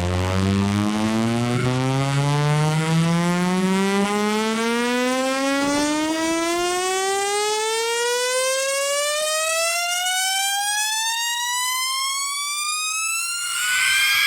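Synthesized test tone with a buzzy, overtone-rich sound in one slow, steady rise in pitch, like a siren winding up, played as a speaker sweep test. Near the end a hiss swells and a second tone comes in.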